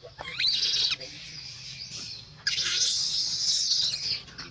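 Newborn macaque crying in two loud, high-pitched screams: a short one rising in pitch near the start, then a longer one from about halfway through. The cries are its calls for milk from its mother.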